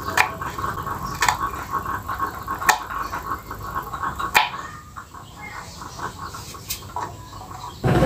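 A kitchen knife cutting a garlic clove on a wooden stool top, its blade tapping the wood five times at uneven intervals. Behind it, an animal's fast, steady pulsing call, fading out near the end.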